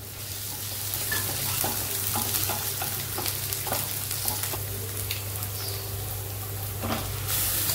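Sliced onions sizzling in hot oil in a non-stick wok, stirred with a wooden spatula that scrapes and taps against the pan. The sizzle grows louder near the end.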